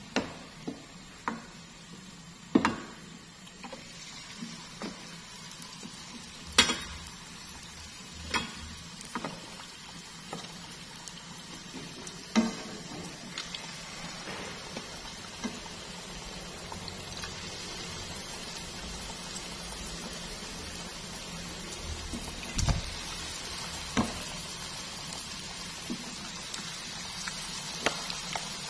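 Battered pumpkin strips deep-frying in hot oil over high heat: a steady sizzle that grows fuller about halfway through as more pieces go in. Scattered sharp clicks and taps sound throughout.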